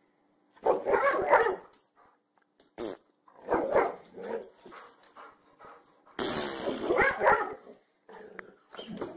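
Boxer dog growling and barking in several bursts a couple of seconds apart.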